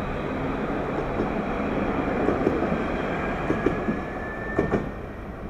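Alstom Citadis tram pulling away and gathering speed along the track: a steady rumble under a slowly rising whine, with the wheels clacking in quick pairs over the rail joints. The sound fades near the end as the tram moves off.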